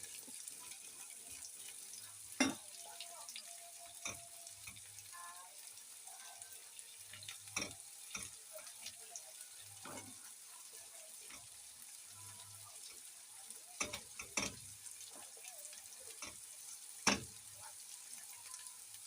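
Chopped vegetables frying in groundnut oil in a pan, a faint steady sizzle. A cooking utensil knocks against the pan about half a dozen times as they are stirred.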